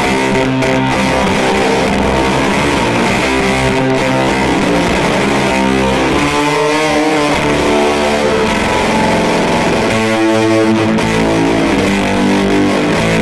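Electric guitar through an EarthQuaker Devices Fuzz Master General fuzz pedal into a Fender Deluxe Reverb amp, with the fuzz turned up high: loud, thick distorted chords held and left to sustain. The pitch wavers and bends about halfway through and again near the end.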